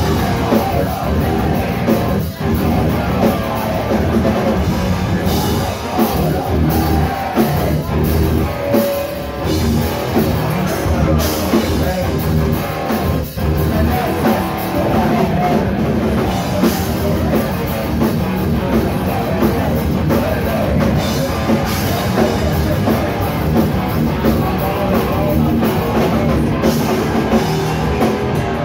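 A live heavy rock band playing loud, with distorted electric guitars and a pounding drum kit. The music breaks off for an instant about two seconds in and again around thirteen seconds.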